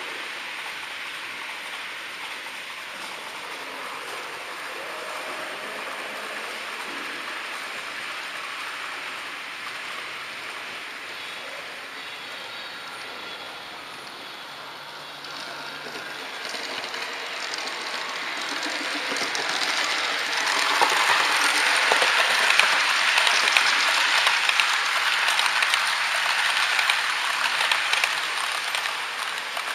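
HO-gauge model trains running on the layout: a steady hiss of small metal wheels rolling on rail with fine rapid clicking, swelling about halfway through and loudest in the last third.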